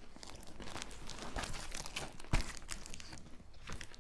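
Plastic food packaging being handled and crinkled, with faint rustling and scratching and one sharp knock a little past halfway.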